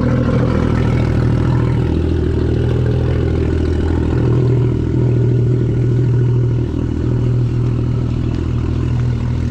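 Supercharged Sea-Doo racing jet ski engine idling steadily, a low even running note with only slight wavers.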